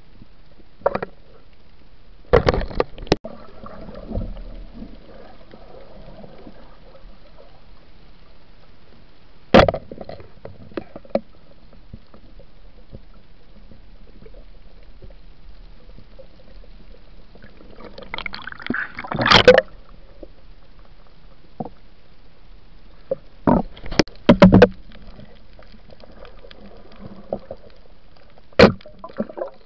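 Underwater sound from a spearfisher's camera: a steady low hiss of the water, broken several times by sharp knocks and short rushes of water or bubbles, the loudest about two-thirds of the way through.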